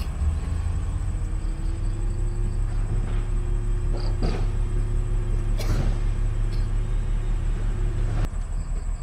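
A steady low rumble with a few faint clicks, dropping off sharply near the end.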